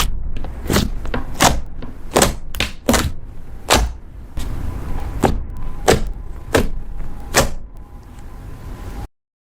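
Slime being squeezed and poked by hand, with a sharp pop or click every second or less over a soft squishing noise; it cuts off suddenly near the end.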